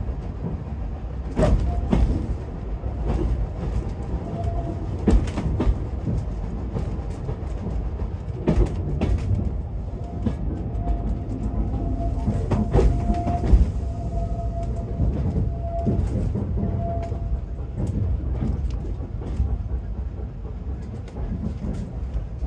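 Heritage railway train running along the track, heard on board: a steady low rumble from the wheels with irregular clicks and knocks from the rails. A thin, faint squeal comes and goes in the middle.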